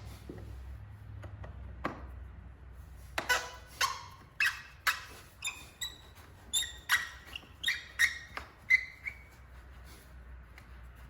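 A series of about a dozen short squeaks and scrapes over some six seconds, several with a clear pitch, as the rubber and plastic air-intake parts are worked loose by hand.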